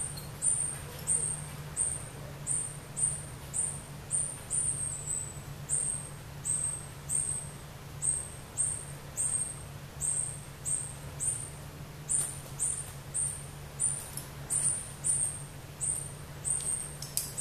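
A high-pitched chirp repeated very regularly, a little under twice a second, each note falling slightly in pitch, from a calling animal in the jungle. A low steady hum lies underneath.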